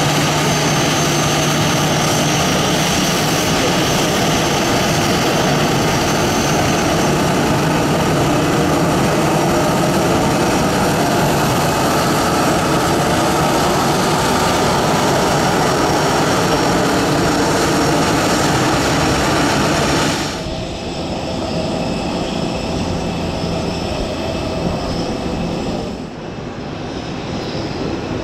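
Airbus A319-111's twin CFM56-5B turbofan engines running at taxi power close by: a steady jet whine over a rumble. About two-thirds of the way through, the sound drops suddenly to a more distant jet engine sound, which dips again and then slowly grows near the end.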